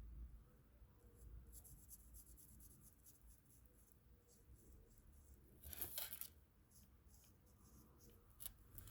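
Coloring strokes on paper: faint, quick scratchy strokes repeating, with a louder, longer stroke about six seconds in.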